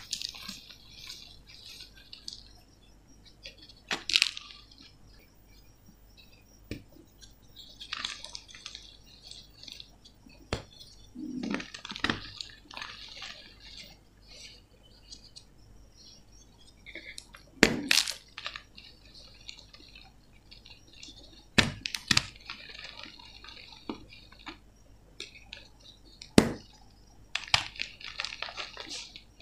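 Hands crushing and crumbling powdery gym chalk, a soft irregular crackling and crunching. Now and then a sharp snap sounds as a piece of a pressed chalk block breaks, about half a dozen times.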